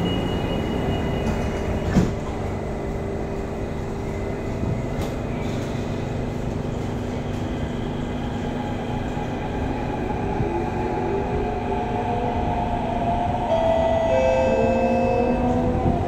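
Interior of a Kawasaki-CRRC Qingdao Sifang CT251 metro train: a single thud about two seconds in as the doors shut, then a steady rumble as the train pulls away, with the traction motor whine rising in pitch as it accelerates through the second half and more steady tones joining near the end.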